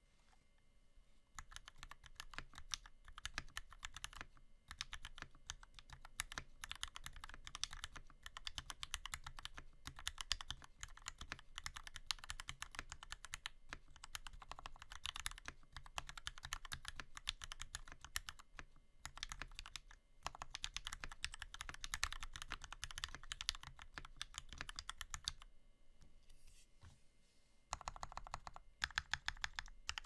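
Fast typing on an NK65 Entry mechanical keyboard with lubed, filmed Turquoise Tealio linear switches under PBT Cherry-profile keycaps: a dense, steady stream of key clacks starting about a second in. After a short lull near the end come a few separate, sharper key presses.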